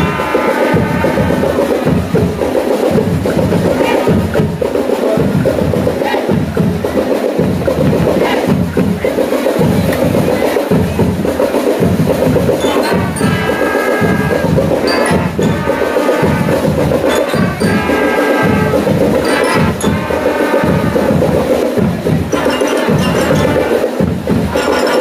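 School marching band playing: trumpets in phrases over a steady drumbeat, the brass strongest in the middle stretch.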